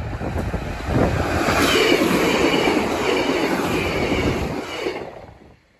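Northern Class 150 diesel multiple unit passing over a level crossing: a loud rush of wheels on rail with a high wavering tone running through it. The sound falls away sharply about five seconds in as the train clears.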